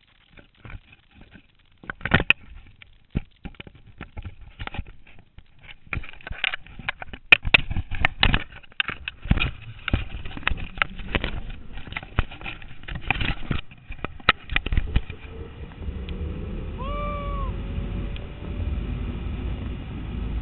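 Zip-line hardware clicking and knocking in a quick irregular run, as clips and the trolley are handled. Then a steady low rumble of the trolley running along the cable, with wind, starts and keeps building. A single short cry that rises and falls sounds near the end.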